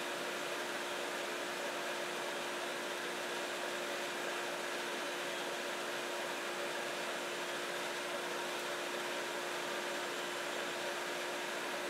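Epilog laser cutter running as it cuts a rocket body tube on its rotary attachment: a steady rushing air noise with a steady hum.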